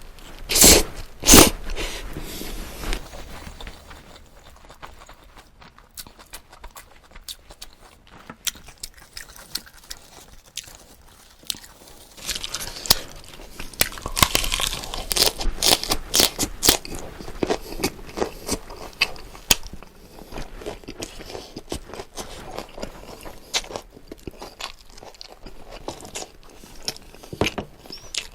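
Close-miked mukbang eating of jokbal (braised pig's trotters) with lettuce wraps, garlic and peppers: chewing, biting and crisp crunching. Two loud sharp bites come about a second in, and the crunching is densest through the middle.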